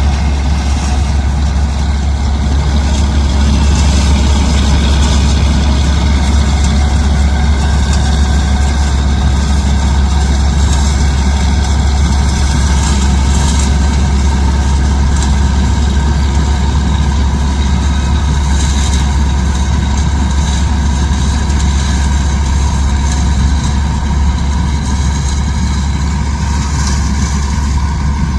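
Diesel engine of heavy farm machinery running loudly and steadily at a constant speed, with a strong deep low drone.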